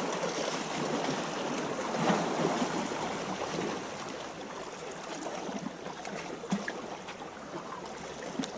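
Steady wash of sea water.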